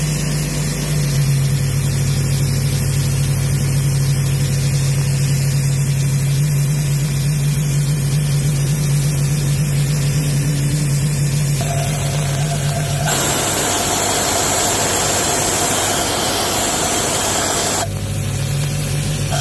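Doosan P425/375 portable air compressor's diesel engine running steadily at about 1500 rpm. About two-thirds of the way in, a loud rush of compressed air sets in from the service air ball valve being opened, stops briefly near the end, then starts again.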